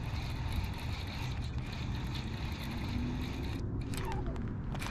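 Baitcasting reel cranked fast in a steady retrieve, its gears whirring, over a steady low rumble.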